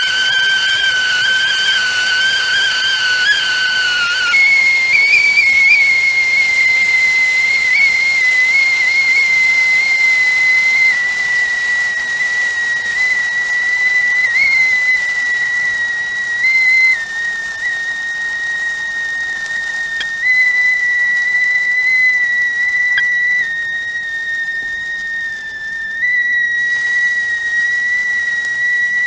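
Stovetop tea kettle whistling at the boil over hissing steam. The whistle's pitch jumps higher about four seconds in, then holds a steady high tone with small wavers.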